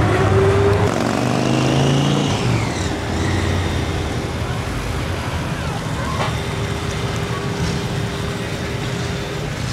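Car engines running at low speed in slow street traffic, loudest in the first couple of seconds as an old car pulls away, then settling to a steadier, quieter rumble.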